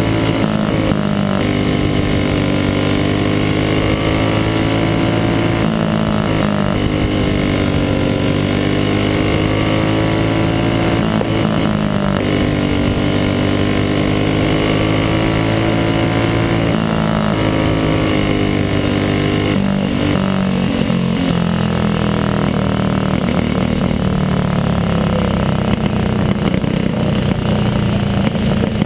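Racing kart engine heard from on board at full race pace. Its pitch climbs along each straight and drops sharply as it slows for each corner, a cycle about every five to six seconds.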